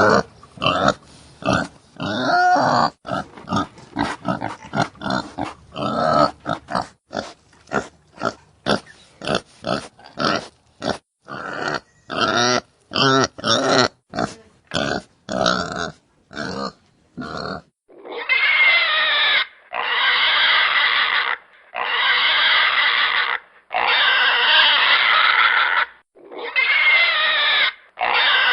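Pigs grunting and squealing in many short, quick calls. About eighteen seconds in, a different recording of pigs squealing takes over, in long calls of a second and a half to two seconds each, about six in a row.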